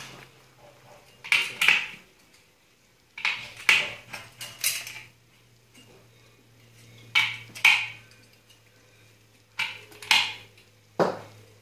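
Tin snips cutting a metal plaster bead: sharp metallic snips in quick pairs and threes, repeated about every two seconds.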